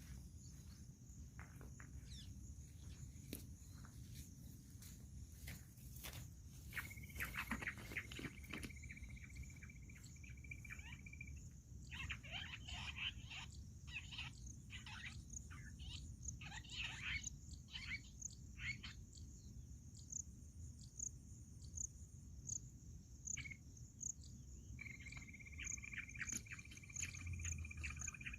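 Wild birds calling over a steady high insect drone: a run of quick falling calls in the middle and a clear held whistle twice, with rapid insect ticking in the second half and a few scattered clicks early on.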